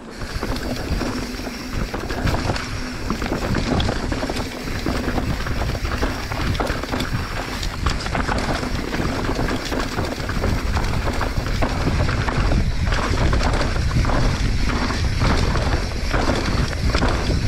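Wind rushing over the microphone and tyre noise from a mountain bike descending a dirt singletrack, with frequent knocks and rattles from the bike over bumps. It grows somewhat louder and more rattly in the second half.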